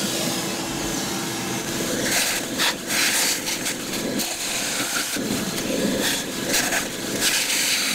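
Shop vacuum running steadily, its hose nozzle sucking loose rust and gunk out of a diesel tractor engine block's cylinder and coolant passages, with scattered rattles as debris goes up the hose.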